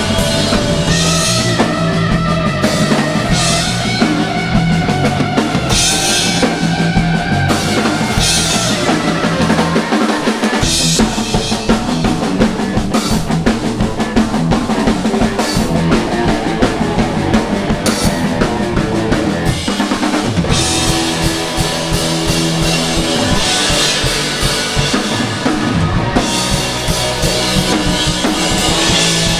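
Glam-punk rock band playing live, the drum kit prominent with bass drum and snare over sustained bass and guitar notes; the low end drops out briefly about ten seconds in.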